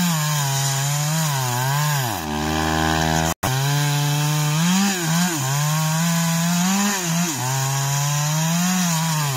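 Chainsaw cutting into the trunk of a huge sao đen (Hopea odorata) tree, its engine pitch dipping and recovering as it works under load. A little over two seconds in, the engine drops to idle and the sound cuts out for an instant. The saw then comes straight back to high revs and keeps cutting.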